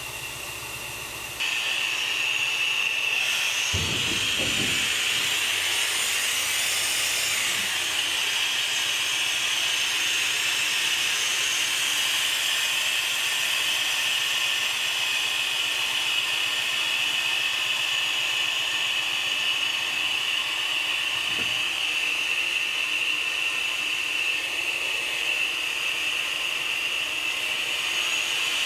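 Compressed air hissing steadily from the air control valves of a 1934 Russell snow plow as the wing and flanger handles are worked, starting suddenly about a second and a half in, with a brief thump a few seconds later. The controls seem to bleed off a lot of air pressure while in use.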